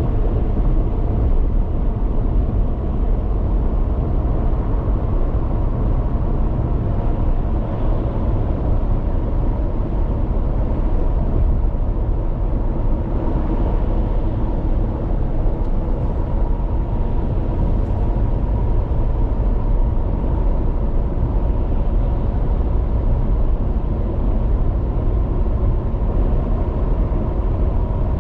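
Steady road noise of a car cruising at highway speed, mostly a low rumble, with a faint steady tone running through it.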